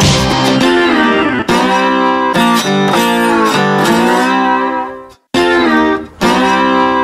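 Guitar-led background music, its held notes bending in pitch; it fades out and drops to silence for a moment about five seconds in, then comes back.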